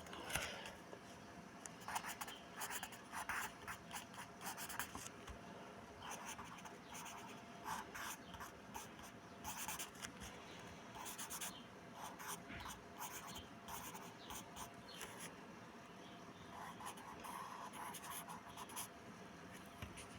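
Faint scratching of a drawing tool on paper, in many short, irregular strokes.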